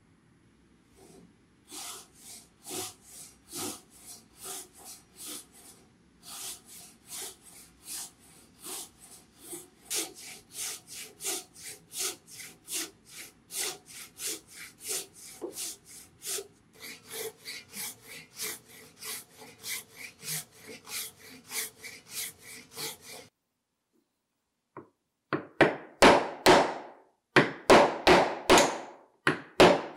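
Japanese pull saw cutting through hardwood in steady strokes, about two a second. Near the end come loud, sharp, regular hammer blows on a chisel chopping out the waste of a joint; these are the loudest sounds.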